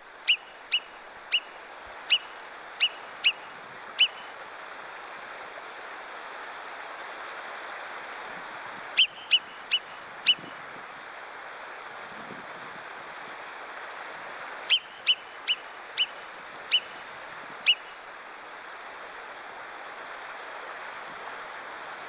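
Alpine marmot giving its sharp, high-pitched whistle calls: short single whistles in three bouts, about seven in quick succession at the start, four more about nine seconds in, and six more about fifteen seconds in, over a steady rushing background noise.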